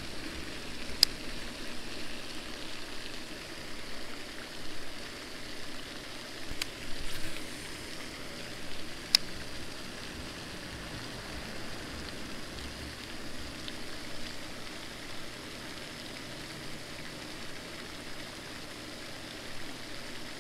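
Steady outdoor background hiss, with three short sharp clicks about one, six and a half and nine seconds in.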